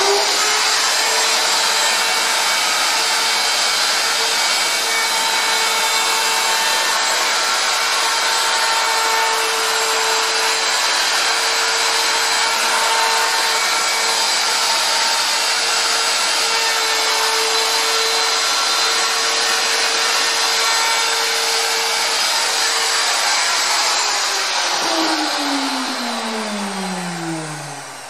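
Handheld router with a flush-trim spiral bit running at full speed, trimming the glued top edge of an MDF cabinet flush with the sides, with a steady high whine. About 24 seconds in it is switched off and winds down with a falling whine.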